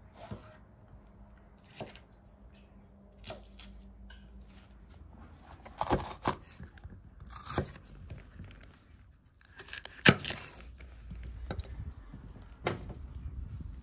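Kitchen knife cutting through crisp green peppers and knocking on a wooden cutting board: a few light knocks, then louder cuts from about six seconds in, the loudest about ten seconds in.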